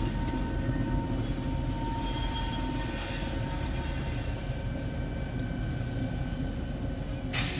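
Freight train running on the rails: a steady low diesel and rolling rumble, with a thin steady squeal from the wheels that fades after a few seconds. A short sharp noise comes near the end.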